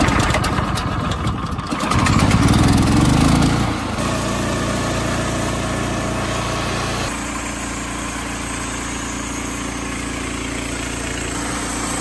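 Briggs & Stratton Vanguard 14 HP gasoline engine on a portable band sawmill running. It is louder for the first few seconds, then settles into a steady run.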